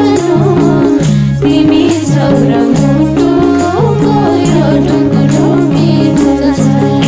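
Nepali folk band playing an instrumental interlude between dohori verses: a winding melody over a repeating bass line and a steady beat, with tambourine jingles.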